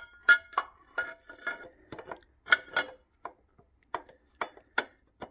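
Aluminium power steering pump bracket clinking and knocking against the engine's metal fittings as it is offered up by hand and worked into place, about a dozen sharp irregular taps with a short ring.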